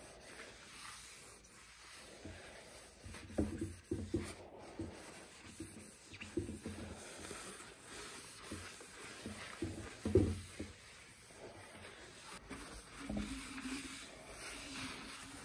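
Paper towel rubbing and rustling over the polished surface of a laburnum burl hollow form, with a few knocks as the wooden piece is handled on the bench, the loudest about ten seconds in.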